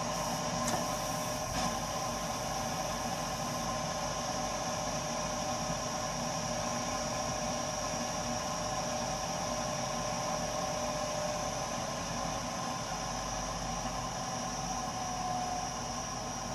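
Burnham Alpine ALP150W gas-fired boiler running, giving off a steady whine of several high tones over a hiss and low hum: the strange noise this boiler often makes while firing, cause unknown. A couple of faint clicks about a second in.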